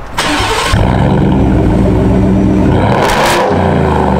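Ford F-150 pickup's engine starting, catching under a second in and then running steadily, heard at its exhaust tips. There is a short burst of hiss about three seconds in.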